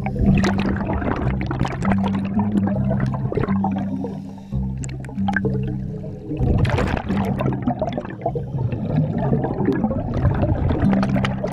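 Background music with a slow bass line stepping between low notes, over bursts of bubbling, gurgling water noise that come and go.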